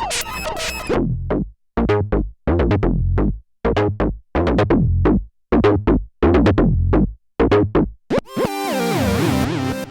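Roland SE-02 analog monosynth playing a repeating sequence of short, plucky notes with quick decays, then about eight seconds in switching to a held line with pitch glides.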